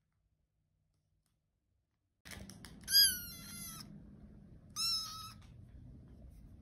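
Tuxedo kitten meowing twice: a loud, high-pitched meow about three seconds in that sags slightly in pitch, then a shorter one about two seconds later. A low steady rumble lies underneath.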